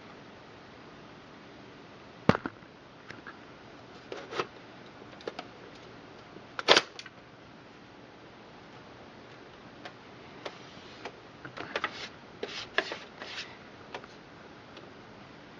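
Scattered clicks and knocks of computer hardware being handled during drive installation in a PC case, with a sharp knock about two seconds in, the loudest about a third of the way through, and a quick run of clicks later on, over a steady hiss.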